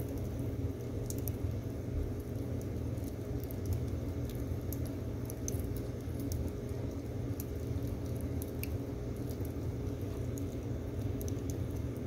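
Split firewood logs burning in a wood stove, crackling with irregular small sharp pops, several a second, over a steady low rumble.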